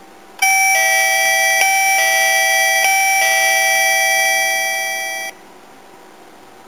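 DELCATEC SA-200 sensor chime playing its electronic chime tune: a short melody of about five notes that lasts about five seconds, getting slightly quieter before cutting off suddenly.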